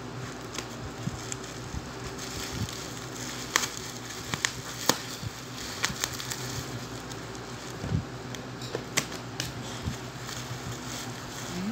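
Black plastic bubble-wrap packaging crinkling and crackling as it is snipped with scissors and pulled apart by hand, with scattered sharp clicks and snips. A steady low hum runs underneath.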